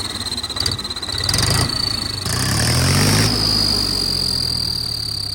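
Mahindra 275 DI tractor's diesel engine running with a turbo whistle fitted in its exhaust silencer, giving a steady high whistle over the engine note. About two seconds in the engine is revved, the whistle rising slightly with it, then both settle back.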